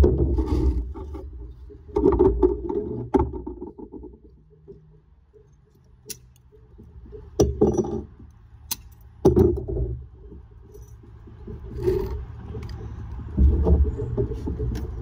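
Hand work on lead capping: scattered sharp metallic clicks, knocks and clinks of tools and fixings being handled, over an irregular low rumble that swells and fades several times.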